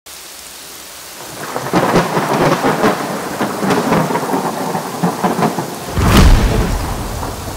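Thunderstorm: rain falls, light at first and heavier after about a second and a half, with a deep rumble of thunder about six seconds in.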